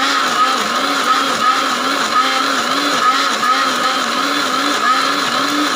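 Electric mixer-grinder running steadily, grinding a thick paste of sautéed greens, garlic, tomato and spices. Its motor whine wavers up and down about twice a second as the load churns in the jar.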